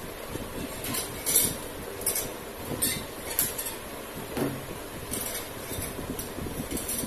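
Homemade lever-type flat bar bender being worked by hand: a series of short metallic clinks and scrapes as the steel lever swings round the pipe pivot and the flat steel bar is bent. One lower clank rings out about midway.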